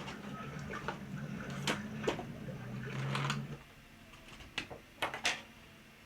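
Scattered clicks and light knocks from a toy drone and its accessories being handled, over a low steady hum that stops about halfway through.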